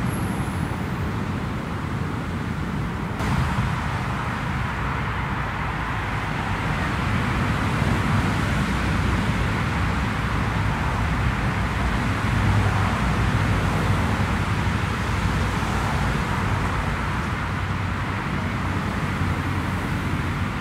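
Steady rumble of airliner jet engines heard from a distance as aircraft taxi and take off, with a sudden shift in the sound about three seconds in and a slight swell in the middle.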